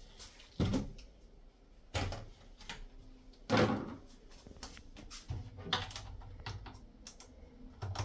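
Several separate knocks and clunks of a plastic waste bin being handled, the loudest about three and a half seconds in.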